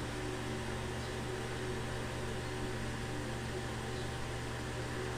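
Steady low hum with a constant hiss, the background noise of the recording between narrated lines.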